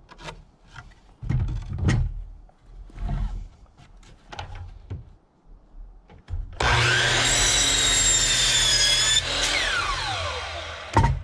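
Boards knocked and slid on a saw table, then a DeWalt sliding compound miter saw starts about six and a half seconds in and whines steadily as it cuts through a 2x4. When the trigger is released its whine falls away as the blade spins down, and a sharp knock comes near the end.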